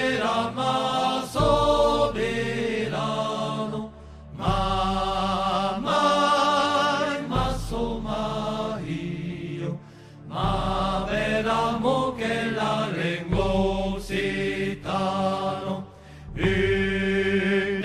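Background music: a sung melody in long phrases with vibrato, separated by short pauses, over a low sustained bass.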